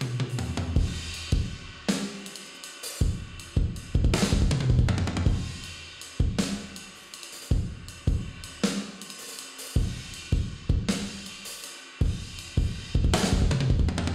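Sampled drum kit (Superior Drummer 3, triggered from an electronic kit) playing a 6/8 gospel groove at 160 BPM. It breaks twice into fast fills of doubled bass-drum kicks alternating with right-left hand strokes, with cymbal crashes.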